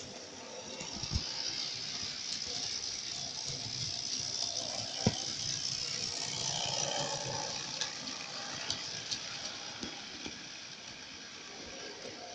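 Model railway train running past on the track, a steady whirring and rattling of motor and wheels that swells over the first couple of seconds and eases off after about seven. A few sharp clicks break through, the loudest about five seconds in.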